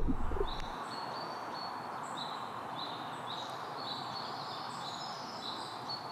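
Woodland birdsong: short high chirps repeating about twice a second over a steady hiss of forest ambience.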